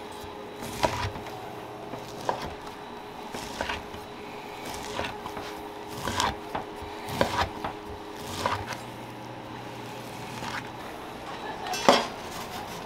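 Kitchen knife cutting down through a stack of fish cake sheets and knocking on a wooden cutting board, about nine cuts spaced a second or so apart, the one near the end the loudest. A steady low hum runs underneath.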